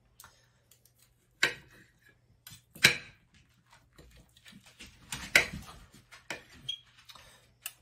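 Stainless steel chef's knife and fork clinking and scraping against a plate while slicing pork tenderloin. Three sharp clinks, about a second and a half in, near three seconds and a little after five seconds, with faint scattered ticks between.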